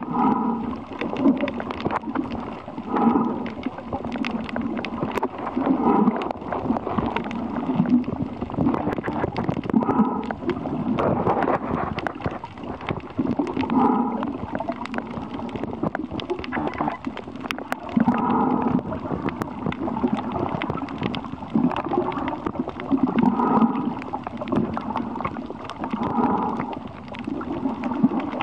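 A diver's breathing heard underwater: a gurgling rush of exhaled bubbles that comes back every few seconds over a constant water noise.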